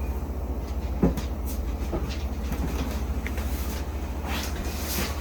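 Steady low hum with a few light clicks and knocks as plastic parts of a 3D printer's filament feeder are handled and fitted.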